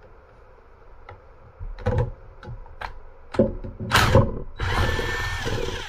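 Cordless impact wrench hammering at a distributor's rotor nut: a few knocks, short bursts about four seconds in, then a run of about a second that cuts off suddenly.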